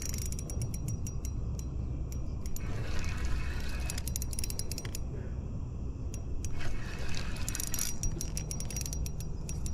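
Spinning reel being cranked by hand, its gears clicking quickly in several runs with short pauses between, as line is wound in on a hooked catch.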